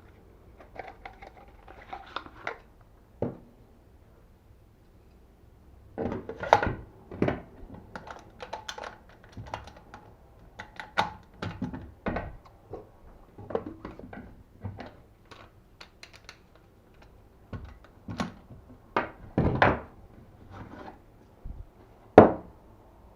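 Airsoft RGM-40 grenade launcher replica being handled: a long run of separate clicks and knocks from its parts being worked and latched, uneven in spacing, with one sharp loud knock near the end.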